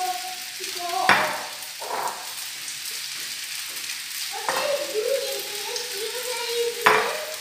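Chow mein stir-frying in a pan: a steady sizzle, broken by two sudden louder bursts, about a second in and near the end.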